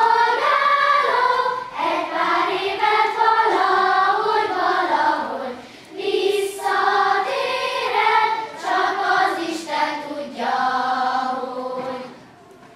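Children's choir singing a Hungarian folk song in sung phrases with short breath breaks; the singing stops near the end.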